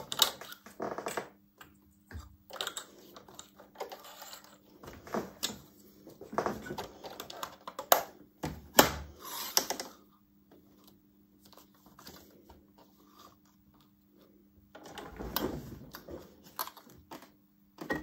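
Irregular clicks and knocks of hands working on a domestic sewing machine while it is rethreaded with a new thread colour, the machine itself not running. About fifteen seconds in, a short rustle of the stiff plastic-film material being slid into place under the presser foot.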